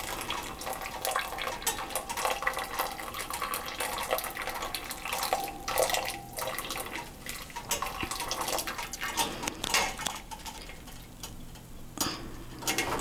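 Dye liquid trickling and dripping back into a stainless steel pot from a soaked wool yarn cake held up with tongs, with irregular clicks and knocks of the metal tongs against the pot.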